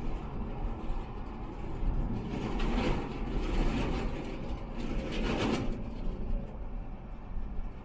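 Car driving at expressway speed: a steady rumble of road and tyre noise, swelling twice, around three and five seconds in.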